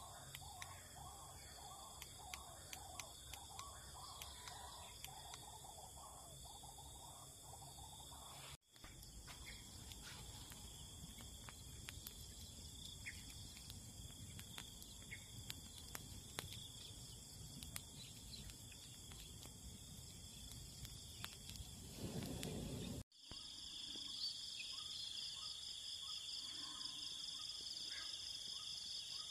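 Steady high-pitched evening insect chorus, with birds chirping repeatedly in the first few seconds and small crackles of a burning wood campfire in the middle part. The insect drone grows louder and pulses near the end, after dark.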